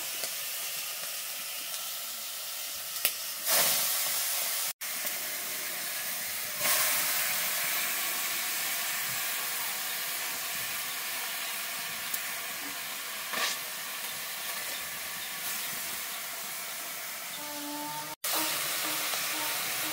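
Steady sizzling hiss of food cooking in a pot over a wood fire, with a few brief louder surges.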